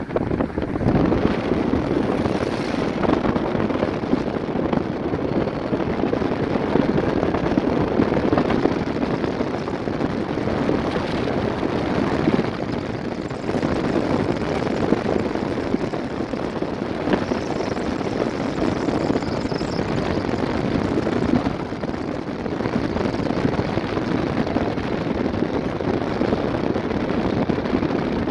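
Steady running noise of a moving vehicle: engine, tyres and wind blending into a dense rumble, dipping briefly about halfway through.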